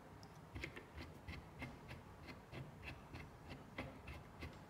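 Faint, regular small clicks, about three a second, typical of the adjusting knob of an aluminium XYZ sliding table being turned by hand.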